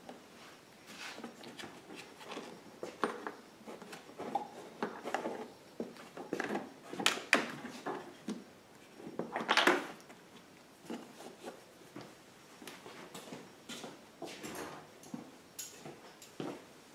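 Irregular light clicks, rustles and scrapes of hand work at a plastic generator housing, as a brass hose barb is screwed by hand onto a Teflon-taped fuel fitting. There is one louder rasp about nine and a half seconds in.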